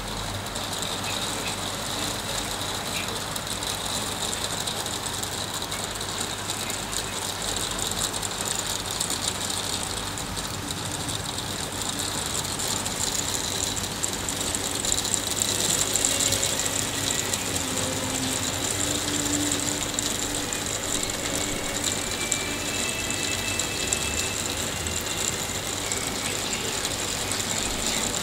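Hail shower: hailstones hitting, a dense steady rattle of many tiny ticks that grows a little louder around the middle.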